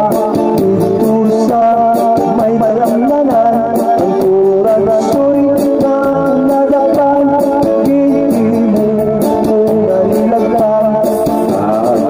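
A man singing a Bisaya song into a handheld microphone over a loud, steady backing music track.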